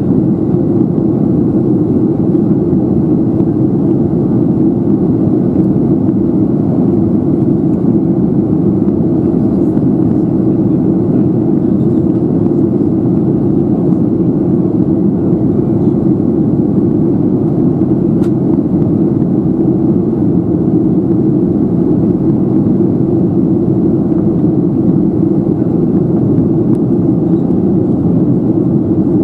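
Steady cabin noise inside a KLM Boeing 737-700 in flight, heard from a window seat beside the wing: airflow and the CFM56-7B engines as an even, loud low rumble while the aircraft descends toward the cloud tops. A faint click about two-thirds of the way through.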